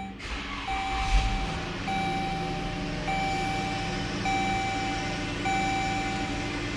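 2014 Dodge Journey's 3.6-litre V6 is push-button started, cranking and catching about a second in, then idling steadily. Over it a dashboard warning chime sounds in long beeps, about one a second.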